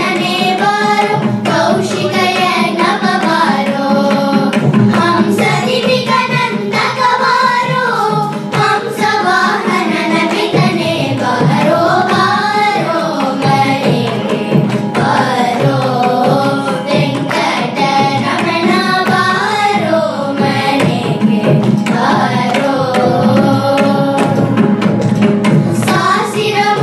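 A group of children singing a Carnatic song together, accompanied by a mridangam. The drum strokes come quickly and steadily under the moving, ornamented vocal line.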